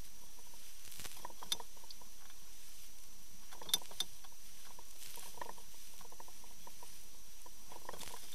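Water sloshing and bubbling against a boat hull, heard through an underwater microphone as a steady hiss with short splashy gurgles. There are a few sharp clicks, two of them close together near the middle, and a faint steady high whine.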